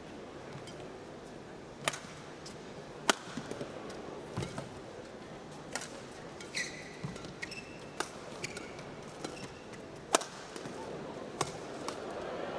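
Badminton rally: rackets strike the shuttlecock in sharp cracks, about one every one to two seconds, seven or eight times. Players' court shoes squeak on the mat near the middle.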